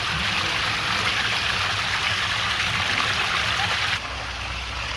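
Steady rushing of flowing water, with a sudden change in its sound about four seconds in.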